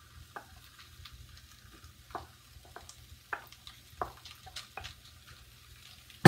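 Food sizzling faintly in a hot pan as rice is added and a spatula scrapes and taps against the pan at irregular intervals, ending with a single loud knock.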